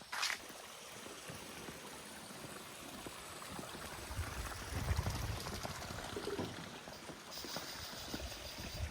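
Steady rushing of running water, with a stretch of low rumbling about four to six seconds in.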